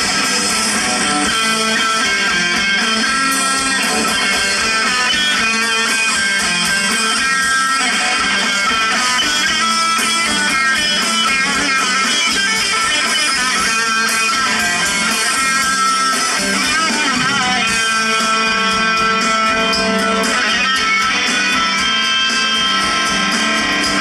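Live band music played loud over a PA system, led by an electric guitar playing a lead line with bent, wavering notes.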